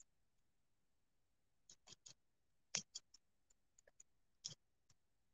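Near silence, broken by a handful of faint light clicks and scratches from fingers working painter's tape on a painted wooden barn quilt panel.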